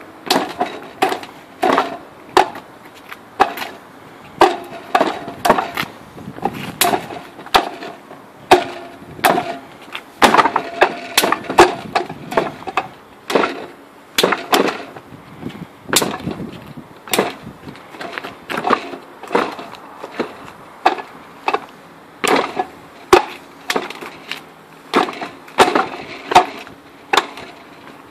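Wooden Wing Chun dummy (mook jong) struck by forearms and palms: a fast, uneven run of sharp wooden knocks and clacks, a few a second, with quicker flurries in places.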